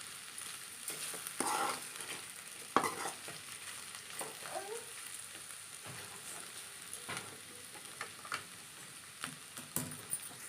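Ivy gourd slices sizzling in oil in a pan while a spatula stirs them. The spatula scrapes and knocks against the pan every second or two over a steady frying hiss.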